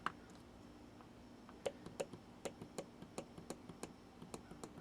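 Small plastic clicks as the minute button on a GPX D505 clock radio is pressed repeatedly: one click at the start, then a run of irregular clicks about two or three a second from about a second and a half in, over a faint low hum.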